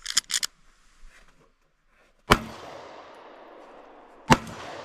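Two shots from a small compact pistol, about two seconds apart, each trailing off in a long echo.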